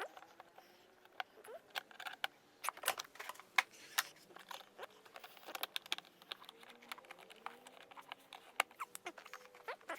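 Irregular sharp clicks and taps of hand tools, screws and plastic seat-trim parts being handled during fitting, with no steady rhythm.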